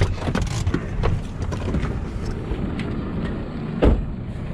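Jeep SUV rolling along a bumpy dirt track, a steady low rumble with light rattles and clicks from the body. A single loud thump comes just before the end.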